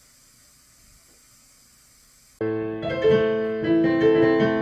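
Faint room tone, then about halfway through, piano music starts abruptly and plays on with sustained, changing notes.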